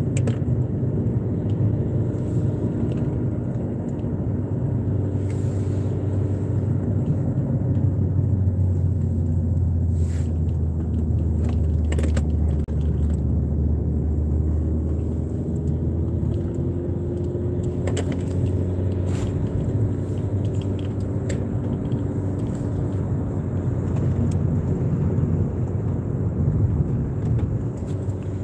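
Car driving along a road, heard inside the cabin: a steady low rumble of engine and tyres, with a faint engine note that drifts up and down and a few light clicks.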